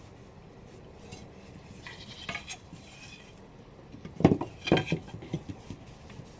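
Wooden loom sticks and boards knocking and clattering against each other as they are handled and shifted on a cloth-covered table: a few light knocks about two seconds in, then a louder flurry of knocks just after four seconds.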